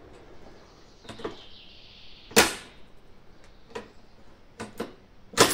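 Two sharp cracks about three seconds apart at a rifle range, with fainter clicks between them.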